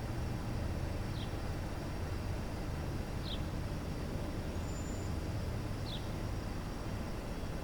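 Steady low outdoor rumble, with a bird giving a short, high, falling chirp three times, about every two seconds.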